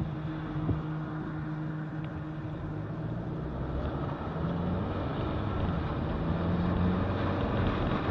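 Steady engine hum and road noise heard inside a moving car.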